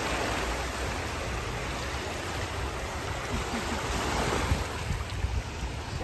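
Small waves lapping and breaking in shallow surf, a steady wash of water that swells about four seconds in.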